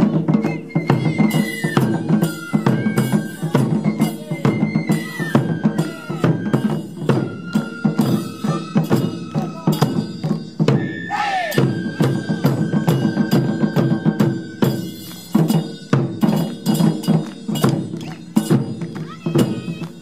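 A Japanese taiko drum ensemble plays fast, steady drum strokes. Transverse flutes carry a high melody over the drums.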